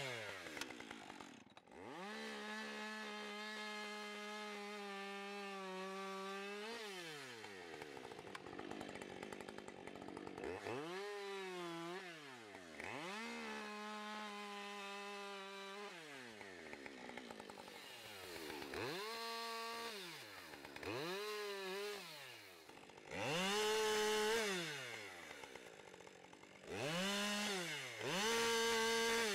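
Two-stroke chainsaw bucking a log in a series of cuts. Each time the engine revs up, holds a steady pitch while the chain cuts through the wood, then falls back to idle, about eight times over. The loudest cuts come near the end.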